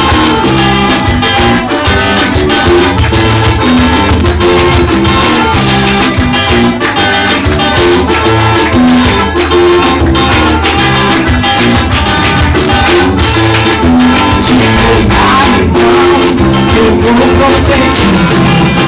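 Gospel band playing an instrumental passage in a Latin dance rhythm, with steady shaker-like percussion and plucked strings over a moving bass line.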